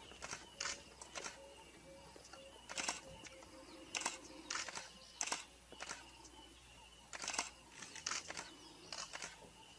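Faint, irregular sharp clicks, a few a second, over quiet outdoor background noise.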